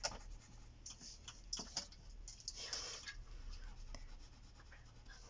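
Graphite pencil scratching on drawing paper in short strokes as a small oval is shaded dark, with one longer, louder scrape just past the middle.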